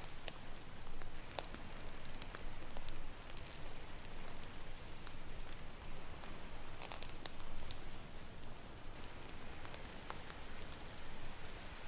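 Campfire crackling, with irregular sharp pops and snaps, over a steady wash of ocean waves.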